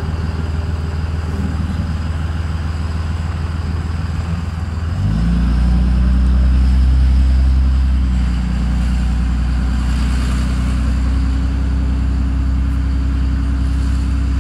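The 5.9 L Cummins inline-six turbodiesel of a 2005 Dodge Ram, on a custom single-injection tune, heard from inside the cab. It runs at low speed, then pulls harder about five seconds in, rising in pitch and loudness for a few seconds before settling into a steady cruise.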